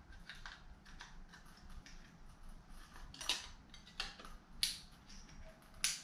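Small plastic clicks and rattles as a motorcycle speedometer and its wiring-harness connector are handled and fitted into a gauge pod, with a few sharper clicks in the second half.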